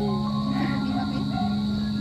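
Background music with steady held notes.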